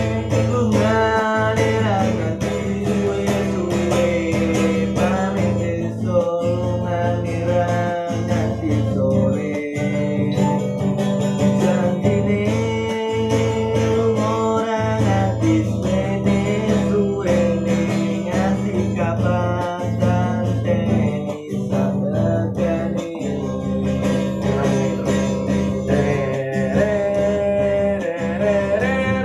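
Acoustic guitar playing, with a sung melody line over it.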